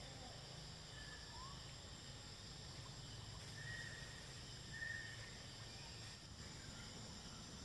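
Steady, faint drone of forest insects in several high pitches, with two short high whistles about halfway through.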